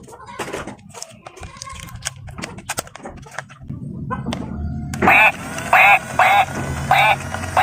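Scattered small clicks and rattles, then from about five seconds in a bouncy tune with a repeated quack-like note about twice a second.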